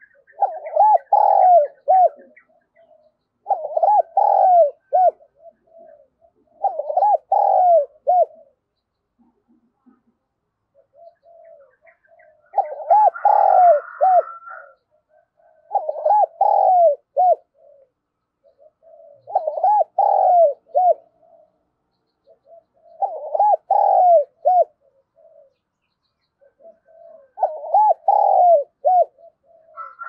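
Spotted dove cooing: phrases of several hooting notes, each one to two seconds long, repeated about every three to four seconds, with one longer pause near the middle.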